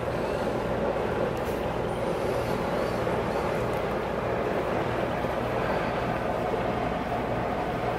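Central heat-and-air unit running: a steady mechanical drone with a constant low hum underneath.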